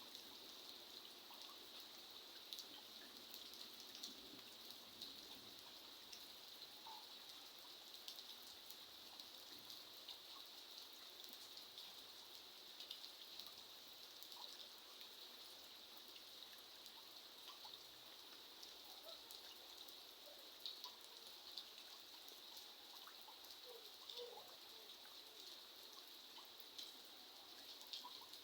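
Soft, steady rain falling, with many scattered drops ticking nearby over an even high hiss.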